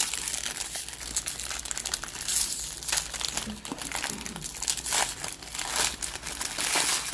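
Foil wrapper of a trading-card pack crinkling as it is handled and opened, a dense irregular crackle.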